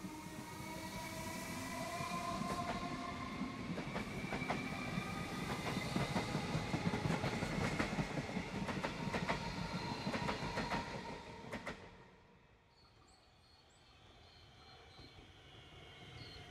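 A Comeng electric suburban train passes at speed, with its traction motors whining and its wheels clicking over the rail joints. The sound cuts off abruptly about 12 seconds in. Near the end a second electric train, a Siemens set, is heard faintly approaching, its whine growing.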